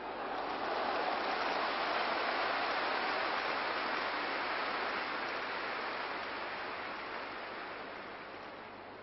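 A large stadium crowd roars as a shot goes in on goal and the goalkeeper dives to save. The roar swells within the first second, holds for several seconds, then slowly dies away.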